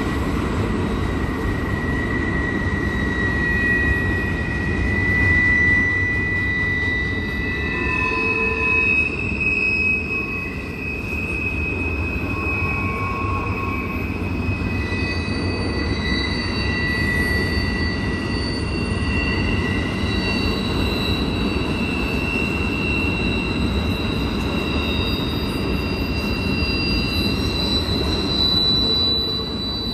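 Double-stack intermodal freight cars rolling past with a steady low rumble, while their wheels squeal in long high tones that rise and fade every few seconds.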